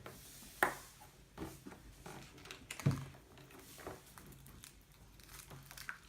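Chocolate egg's foil wrapper crinkling, with small clicks and taps from a plastic toy capsule being handled. Two sharper clicks stand out, about half a second in and about three seconds in.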